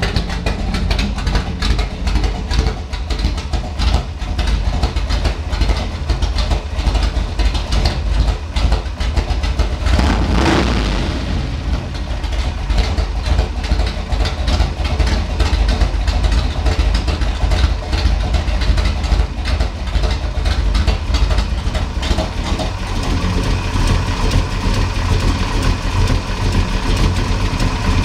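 1970 Chevelle SS 396 L34's big-block V8 idling with its electric exhaust cutouts open, so the exhaust leaves ahead of the mufflers.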